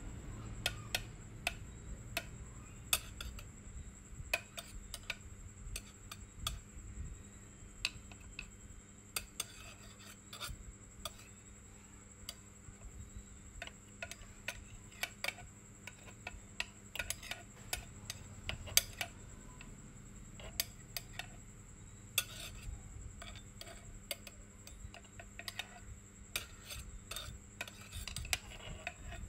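Irregular light clinks and taps of cutlery against dishes and pots, one or two a second, over a faint steady high tone.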